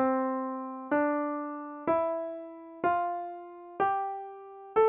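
C major scale (Ionian mode) played slowly upward on a piano, one note about every second: C, D, E, F, G, with A struck near the end. Each note is struck and left to die away.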